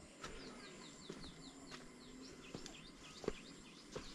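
A small bird chirping a quick series of short falling notes, over footsteps on a stone path as a few soft knocks, the loudest about three seconds in.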